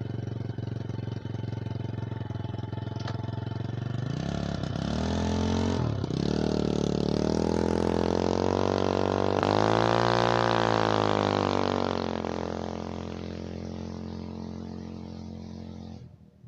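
Taotao 50cc scooter engine, running through an aftermarket longer exhaust pipe in place of the stock muffler, driving by: it revs up about four seconds in, dips briefly, then passes close at about 30 mph with its pitch rising and falling, and fades away before cutting off near the end. Louder than the stock exhaust but not very loud.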